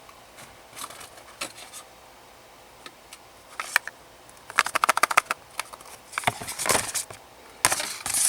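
Small product packaging being opened and handled to take out the trackers: scattered light clicks and rustling, a quick run of small clicks about five seconds in, and louder rustling near the end.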